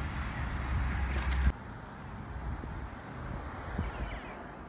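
Street background with a steady low rumble of traffic and a brief clatter about a second in. About a second and a half in it cuts off suddenly, leaving a much quieter, faint outdoor background.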